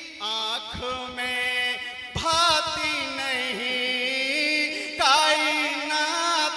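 A man singing a manqabat, a Sufi devotional song, through a microphone and loudspeakers. He holds long, wavering, ornamented notes in several phrases over a steady low accompanying tone.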